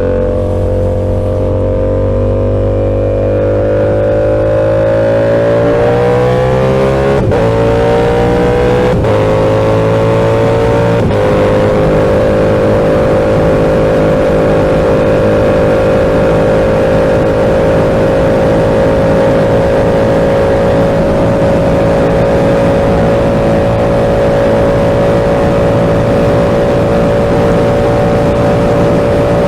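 Yamaha R7's 689 cc parallel-twin engine through an SC-Project aftermarket exhaust, heard on board while riding. The engine pulls with its pitch climbing, with short breaks at about 7, 9 and 11 seconds as it shifts up, then holds a steady pitch at cruising speed. A hiss builds underneath as speed rises.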